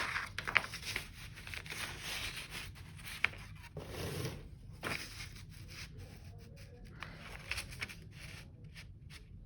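Paper rustling and light handling clicks as the fan's instruction manual is picked up and its pages are opened and turned.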